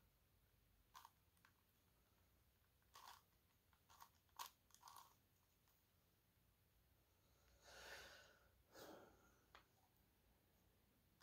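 Faint plastic clicks and scrapes of a 5x5 dodecahedron puzzle (a Gigaminx) being turned by hand, with scattered single clicks and a couple of longer scraping turns near the end.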